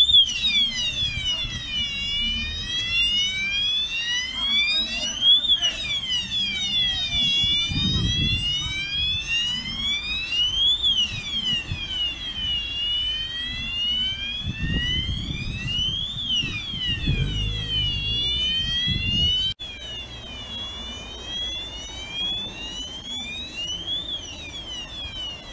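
Electronic alarm siren wailing, its pitch rising and falling about every two and a half seconds, with some low rumble underneath. It drops suddenly in level about twenty seconds in and keeps wailing more quietly.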